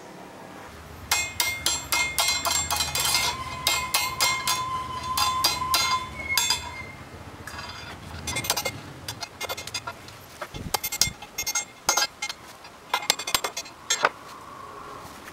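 A hammer striking 6 mm rebar against a steel I-beam to bend it into curves: quick runs of sharp, ringing metal blows. They start about a second in, come thickest in the first half, then fall into shorter, sparser bursts.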